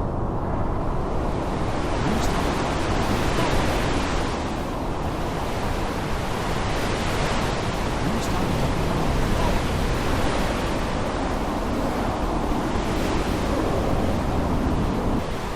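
Heavy rain with wind in a storm: a dense, steady hiss whose high end swells and eases every few seconds as the gusts come and go.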